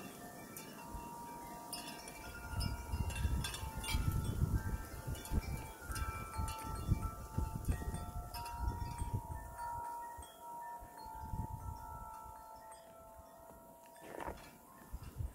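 Wind chimes ringing: several clear tones at different pitches, sounding one after another and overlapping. Underneath is a dull low rumble, loudest from about two to nine seconds in.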